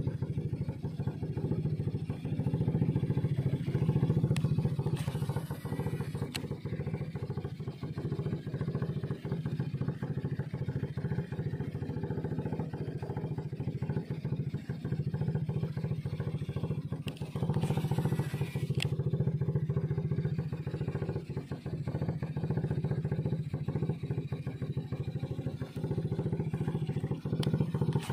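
Small boat engine running steadily as the boat moves along, with a few brief clatters.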